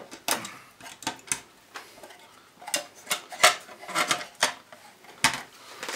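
Irregular plastic clicks and knocks, about nine in all, as a controller circuit board is worked down into a plastic weatherproof enclosure.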